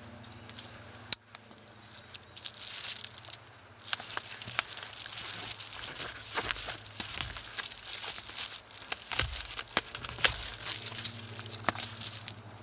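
Crinkling and rustling with many scattered sharp clicks, and one loud click about a second in.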